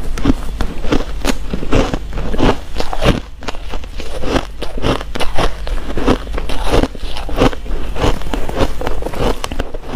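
Close-miked chewing of packed freezer frost and crushed ice: a steady stream of sharp crunches, about two or three a second.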